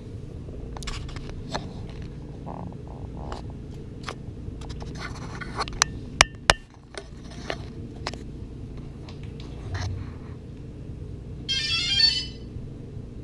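Clicks, knocks and scrapes of a DJI Phantom 2 Vision Plus drone and its remote controller being handled while they are switched on, with three sharp clicks near the middle. Near the end comes a short run of electronic startup tones.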